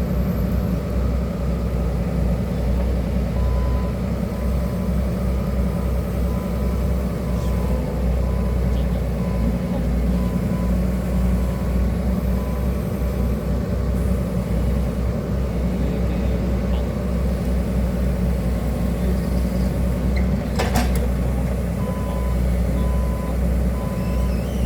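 Hydraulic excavator's diesel engine running steadily, with its travel alarm beeping at an even pace while it moves, stopping for a stretch in the middle and starting again near the end. A single sharp knock about three quarters of the way through.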